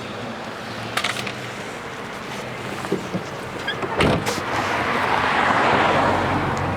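A vehicle engine running steadily with a low hum, a sharp knock about four seconds in, then a rush of noise that swells and fades.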